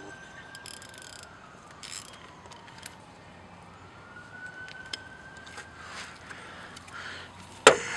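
Faint emergency-vehicle siren wailing, a single tone slowly rising and falling, then rising again. Scattered short clicks of hand-tool work, with one sharp, loud clack near the end.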